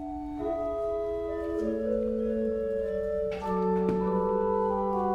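Slow music of long held notes that overlap and change pitch every second or so, with a short hiss about three seconds in.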